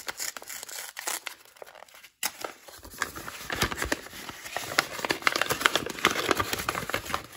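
Brown kraft paper wrapping crinkling and crumpling as it is handled and unfolded by hand, with a brief lull about two seconds in and busier crinkling from about three seconds on.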